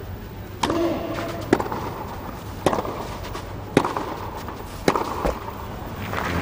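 Tennis racquets striking the ball in a clay-court rally: a serve and then about six sharp pops, roughly a second apart. The crowd begins to applaud near the end as the point is won.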